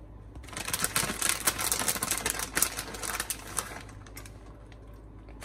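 Plastic bag of shredded cheese crinkling as it is shaken out by hand, with the cheese landing on tortilla chips: a dense run of small crackles starting about half a second in and dying down a little before four seconds.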